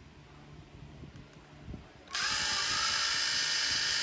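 Makita DTD171 18V brushless impact driver, triggered with nothing in the chuck, spinning up about two seconds in with a rising whine and then running steadily at speed without hammering.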